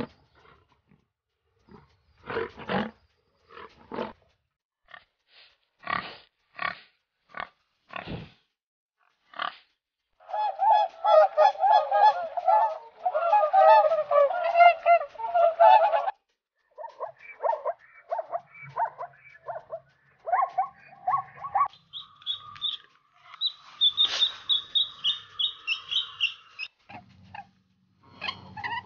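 Waterfowl honking. A few seconds of short, separate sounds give way, about ten seconds in, to a dense run of loud honking calls. Shorter calls and higher-pitched cries follow near the end.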